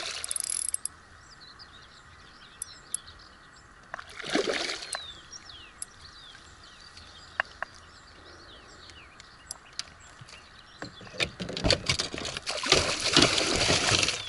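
Hooked asp splashing at the surface as it is played and brought in: a short splash about four seconds in, then a longer, louder spell of splashing near the end. Small birds chirp throughout.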